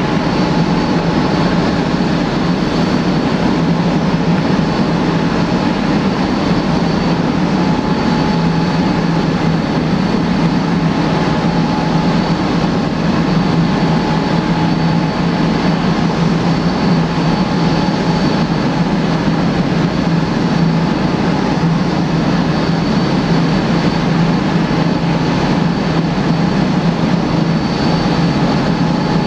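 Boeing 787-8's Rolls-Royce Trent 1000 turbofan engines running at taxi power: a steady jet rumble with faint steady whining tones over it.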